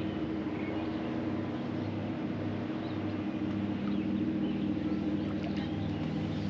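Steady low motor hum on the water, with a faint pulsing beat about twice a second through the middle.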